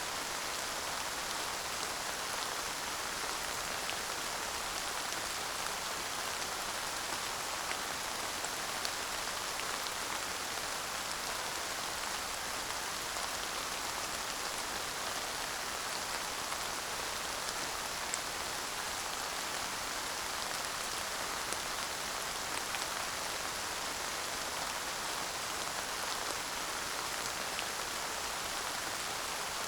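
Steady light rain falling, an even hiss with faint scattered drop ticks.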